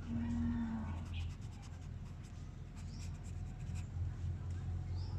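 Highlighter pen scratching across paper in short repeated strokes, over a steady low hum.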